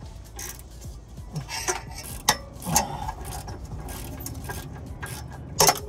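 Scattered metal clicks and knocks as a new front exhaust pipe and its clamp are worked into place under a Vauxhall Zafira, with a sharper knock near the end.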